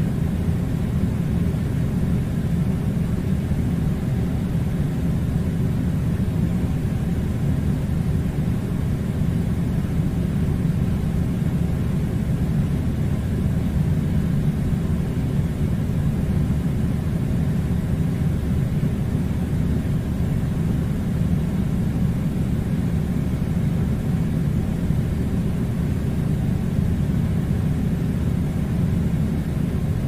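Air conditioner running: a steady, even low rumble that does not change.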